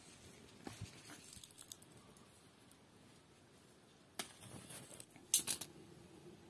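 Green fruit being picked by hand from a tree: leaves rustle and stems snap with sharp clicks. One crisp snap comes a little after four seconds in, and a louder quick cluster of snaps about a second later.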